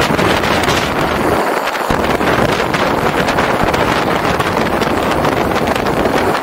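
Wind rushing and buffeting over the camera microphone on a moving motorcycle, a loud steady roar that covers the bike's own sound. The deep rumble drops out briefly about one and a half seconds in.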